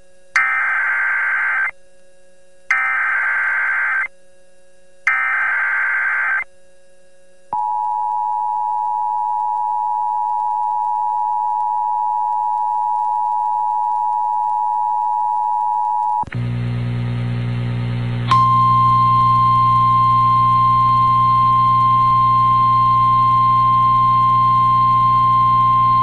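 Emergency Alert System broadcast over the radio: three short bursts of SAME digital header tones a second apart, then the two-tone attention signal held for about nine seconds. About sixteen seconds in, an electrical hum comes in, followed by a single steady alarm tone of the NOAA Weather Radio kind that runs to the end, introducing a tornado warning.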